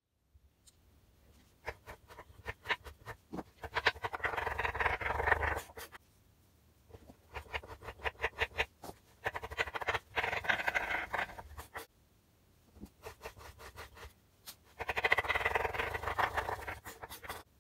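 Kitchen knife chopping a crumbly bubble bar on a wooden cutting board: single cuts knocking on the board, then three bursts of fast chopping, each about two seconds long, that crunch the bar into crumbs.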